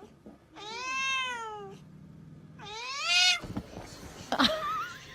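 A cat meowing twice: two drawn-out meows, each rising and then falling in pitch, the second louder. A few light knocks follow.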